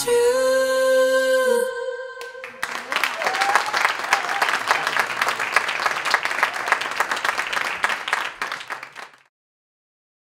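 The song ends on a long held sung note that stops about two seconds in, followed by audience applause that fades out near the end.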